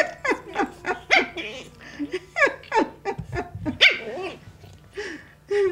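Japanese Chin puppies yapping in play, a quick run of short high-pitched yips and barks, about three or four a second.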